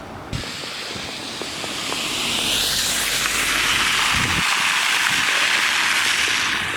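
Car tyres hissing through slush on a snow-covered road, the hiss building over a couple of seconds and then holding loud as the vehicle passes close.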